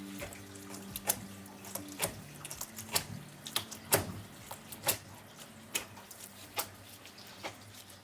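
A pig lung being punctured over and over with a pointed tool for ASMR, giving sharp irregular pops about once a second.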